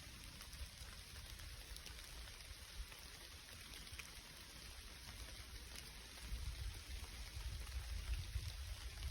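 Light rain falling, a soft even hiss with scattered drops ticking. A low rumble underneath grows louder about six seconds in.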